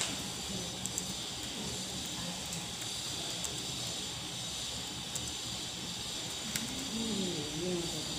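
Steady background hiss of a quiet room, with a few faint clicks and a faint murmur of voices near the end. No tuning-fork tone stands out.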